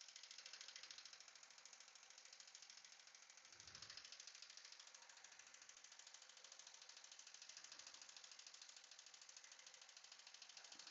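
Mini Cooper S 1.6-litre turbocharged four-cylinder idling faintly with a distinctive rapid tap from the engine, running with the VANOS camshaft-timing solenoid unplugged; the tap is the engine noise under diagnosis. A soft low thump comes about three and a half seconds in.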